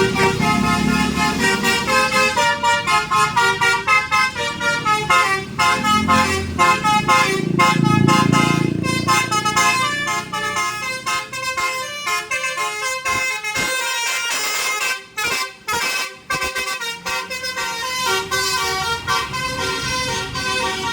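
A bus's 'telolet basuri' melody horn, an electronic tune module driving its horns, playing quick runs of stepped notes over the rumble of the bus engine. The tune breaks off briefly a few times about two-thirds of the way through, then carries on.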